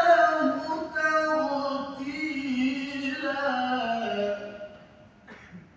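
A man reciting the Qur'an in melodic tajwid style, drawing out one long ornamented phrase that steps down in pitch and fades out about four and a half seconds in.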